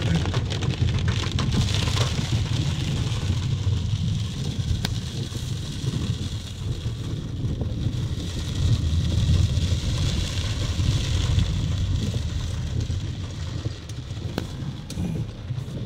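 Heavy rain on a car, heard from inside the cabin: a steady hiss of rain over the low, constant rumble of the car's engine and tyres.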